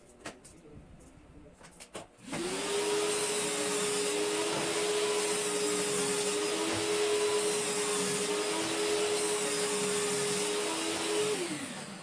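A few light clicks, then an electric motor with a loud hiss starts up about two seconds in, runs at a steady speed, and winds down near the end.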